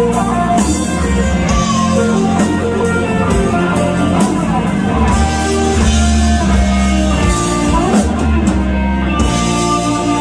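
Live rock band playing: electric guitars strumming sustained chords over a bass guitar and a drum kit keeping a steady beat.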